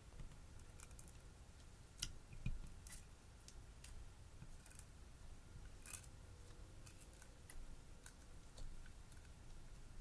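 Slime being mixed and squeezed by hand, giving faint scattered clicks and small crackling pops, the loudest two about two seconds in.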